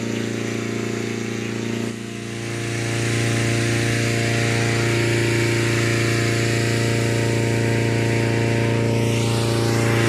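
Engine-driven inflator fan running steadily as it blows cold air into a hot-air balloon envelope. Its drone dips briefly about two seconds in, then grows louder and holds.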